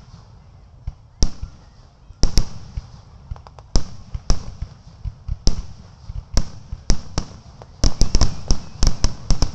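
Aerial fireworks shells bursting in irregular booms about a second apart, quickening into a rapid string of bangs near the end.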